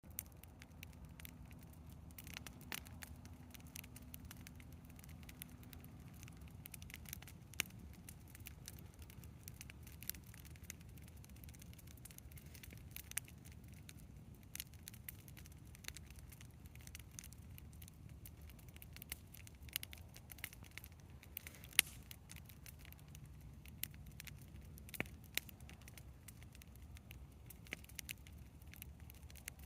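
Bonfire crackling: irregular sharp pops and snaps, a few louder than the rest, over a steady low rumble.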